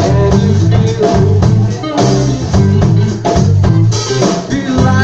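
Live band music: a bass line of repeated low notes over a drum kit keeping a steady beat.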